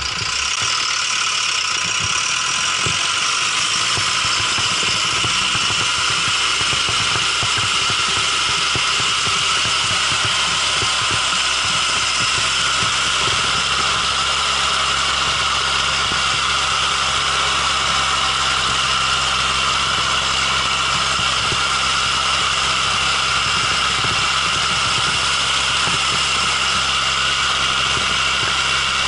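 Zetor 9540 tractor's diesel engine running steadily at a constant speed while the tractor pushes a front snow plough.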